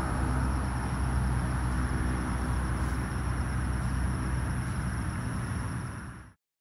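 Outdoor ambient noise: a low rumble with a steady high-pitched whine over it, fading out about six seconds in.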